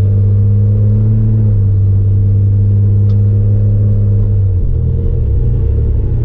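Inside-the-cab drone of a 1987 Chevrolet S10's 2.8-litre V6 while driving, a steady low hum with road noise. About four and a half seconds in, the hum eases off.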